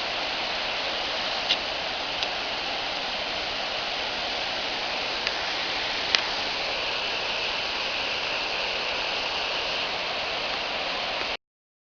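Steady rushing of a waterfall, with a few short clicks, the sharpest about six seconds in. The sound cuts off suddenly near the end.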